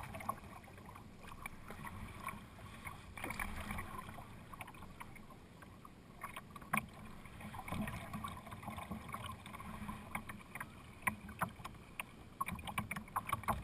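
Kayak paddling on calm river water: the paddle blades dipping and pulling, with water splashing, dripping and lapping against the hull in many small irregular clicks and splashes.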